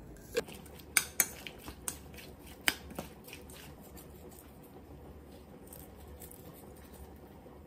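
Several sharp clicks and taps in the first three seconds from small seasoning containers being handled and set down over a stainless-steel mixing bowl, followed by only a faint steady hum.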